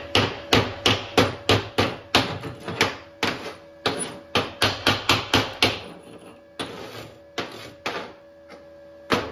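A chipping hammer tapping on a steel weld coupon, knocking slag off a freshly laid stick-weld bead. Quick sharp metal-on-metal taps at about three to four a second for six seconds, then a few slower, spaced blows.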